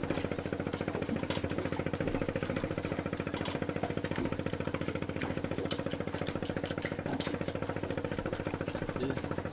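A boat's inboard engine idling, a steady, rapid chugging with an even pulse and faint clicks over it.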